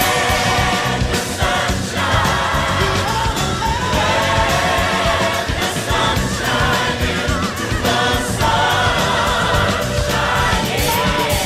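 Music with a choir singing, loud and continuous.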